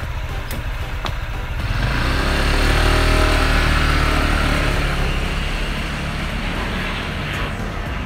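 Motor scooter engine revving up as it pulls away, rising a little in pitch and then fading, over steady street noise.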